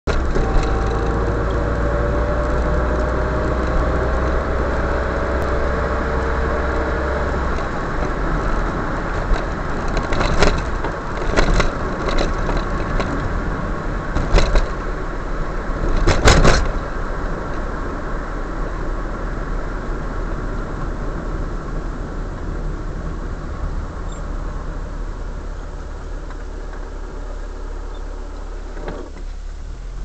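Car driving on a city highway: steady engine and road rumble, with a faint rising whine over the first several seconds. Several sharp knocks come in the middle, and the noise eases off near the end as the car closes up behind traffic.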